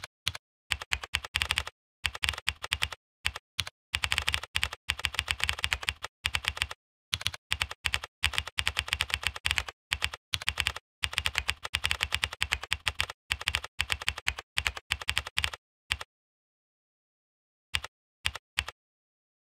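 Typing on a computer keyboard: fast runs of key clicks broken by short pauses, stopping about sixteen seconds in, with a few last keystrokes near the end.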